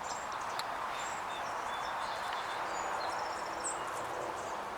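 Sparrows chirping: scattered short, high call notes over a steady background rush.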